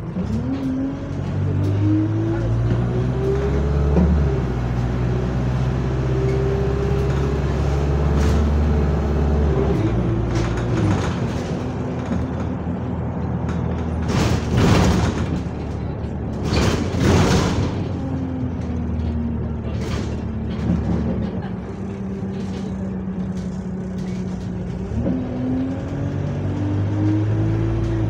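Inside an ENL-class single-deck diesel bus under way: the engine and automatic gearbox note climbs as it accelerates, holds, then drops at a gear change about ten seconds in. Two short loud rushes of noise come about halfway. The note falls as the bus slows and climbs again as it pulls away near the end.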